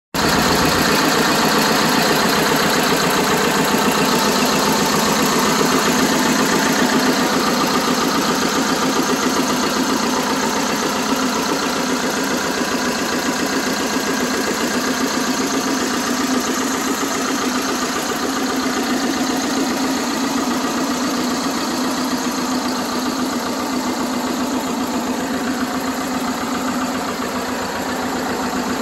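Vladimirets T-25A1 tractor's air-cooled two-cylinder diesel engine idling steadily, with an even, unchanging beat.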